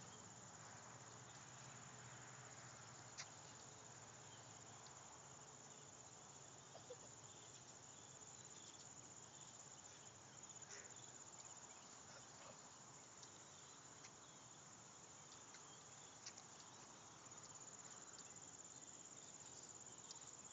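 Near silence in an open field: faint, steady cricket chirring, with a few faint clicks.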